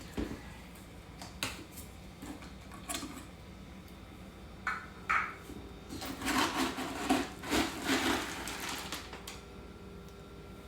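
A cat's food bowl and utensil being handled while cat food is dished up: scattered knocks and clinks, then a couple of seconds of scraping and clattering past the middle.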